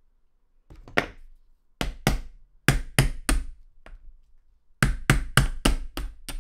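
Hammer tapping a pin punch to drive a pin out of an Air Arms CD air rifle trigger block resting on a drilled wooden block. About a dozen sharp taps in two runs of roughly three a second, with a pause in the middle.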